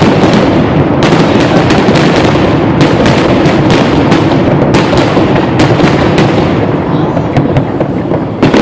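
Fireworks finale: a dense barrage of shells bursting in rapid succession over a continuous heavy rumble, with many sharp cracks. It thins a little near the end.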